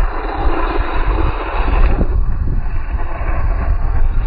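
Electric large-scale RC truck driving on a loose dirt track, its tyres churning dirt, under heavy wind buffeting on the microphone.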